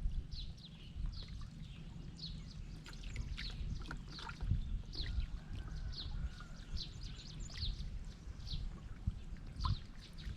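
Small birds chirping: many short, falling notes repeated a few times a second, over a steady low rumble.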